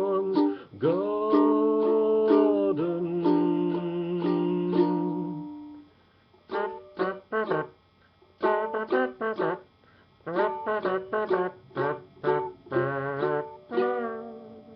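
The end of a comic song with string accompaniment. Held sung notes over strummed chords fade out about six seconds in. A closing run of short strummed chords on the string instrument follows and stops about fourteen seconds in.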